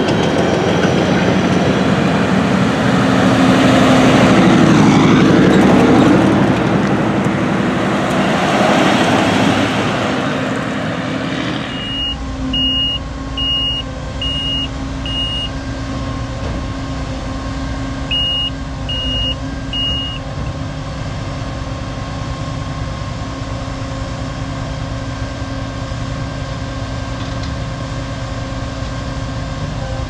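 Heavy vehicles passing on a road: a loud rumbling that swells about four to six seconds in and again near nine seconds, then dies away. About twelve seconds in it gives way to the steady hum of the CLAAS Lexion 8600 TT combine's diesel engine idling, with two runs of short high beeps, five and then three.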